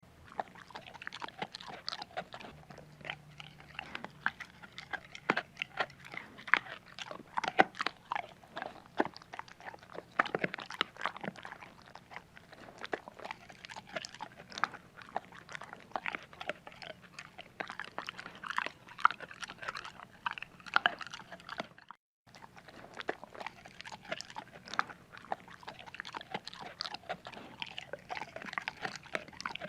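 A dog eating, crunching its food in dense, irregular bites and chews, with a brief break about two-thirds of the way through.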